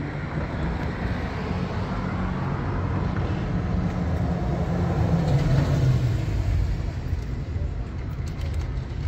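Road traffic: a passing motor vehicle's engine hum and tyre noise swell to a peak about five to six seconds in, then fade.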